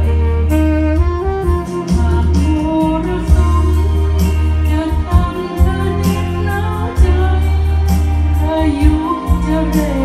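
Band music playing: a deep bass line under a lead melody, with regular drum and cymbal hits.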